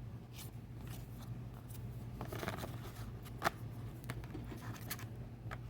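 Paper folders and photocards being handled: soft rustling with small clicks and taps, and one sharper tick about three and a half seconds in.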